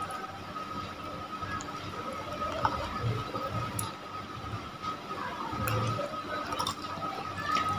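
Wet squishing and smacking as raw fish skin and flesh is pulled apart by hand and then bitten and chewed, with a few soft clicks and a faint steady high tone underneath.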